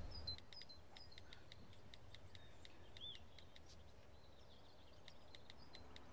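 Faint outdoor ambience with small birds chirping: short high downward chirps and quick scattered ticks.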